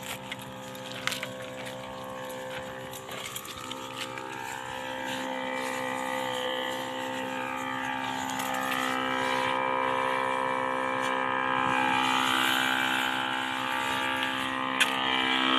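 Small engine of a motorized crop sprayer running steadily, growing gradually louder.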